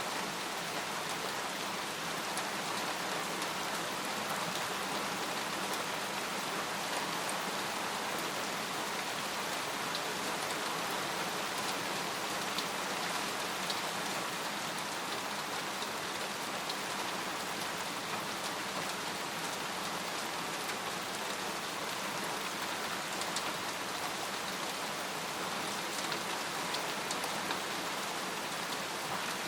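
Steady rain falling on a tent, an even hiss of rain with scattered sharper drop ticks.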